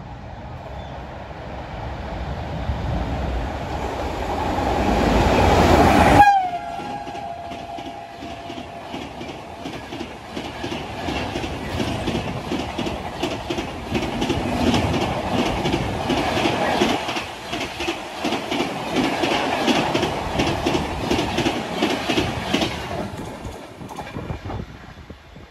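West Bengal Sampark Kranti express train approaching at speed, growing louder, its horn sounding and dropping in pitch as the front passes about six seconds in. A long run of coaches follows, rattling with a rapid clickety-clack of wheels over the rail joints, then fading away near the end.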